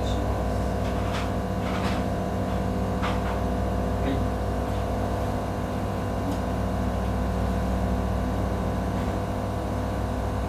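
High-flow nasal cannula unit running at 30 L/min: a steady machine hum with the rush of airflow, with a few faint clicks.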